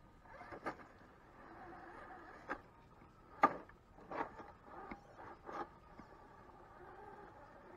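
Electric drive motor and gears of an Axial SCX10 RC rock crawler whining faintly as it crawls over rock, broken by half a dozen sharp knocks and clacks of tyres and chassis against the stone, the loudest about three and a half seconds in.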